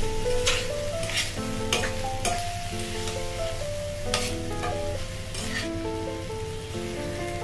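A metal spatula scraping and stirring a potato-and-pea filling as it fries in a steel pan, with a light sizzle and repeated sharp scrapes. Background music with a melody of short held notes plays underneath.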